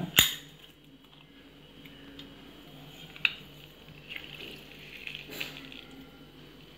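Hand-held metal lemon squeezer pressing lemon halves over a steel plate: a sharp metal click just after the start and another about three seconds in, with fainter squeezing sounds between.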